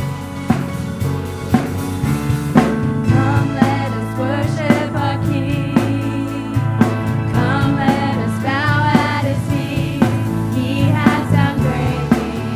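Worship band music: a drum kit keeping a steady beat under bass and keyboard chords, with singing coming in about three seconds in.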